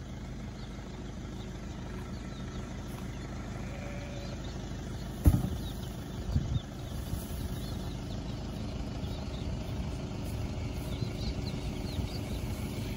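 Four-wheel-drive ute's engine running with a steady low hum, with a sharp thump about five seconds in and a smaller one a second later. Faint birds chirp in the background.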